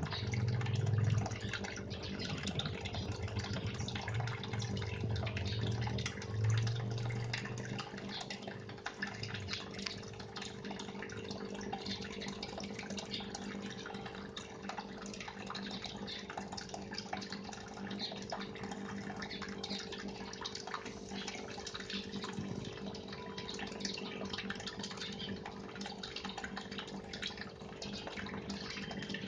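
Aquarium water bubbling and splashing from the filter pump and air lines in a goldfish tub, over a steady electric hum from the pumps. A low rumble sits under it for the first several seconds.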